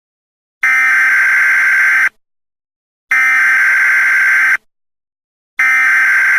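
Emergency Alert System header data bursts: three identical buzzy electronic screeches, each about a second and a half long, separated by about a second of silence. The third is cut off partway through.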